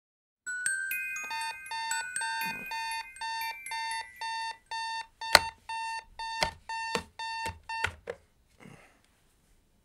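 Digital bedside alarm clock beeping about twice a second. Several thumps come as a hand slaps at the clock, the loudest about five seconds in, and the beeping cuts off about eight seconds in as the alarm is switched off.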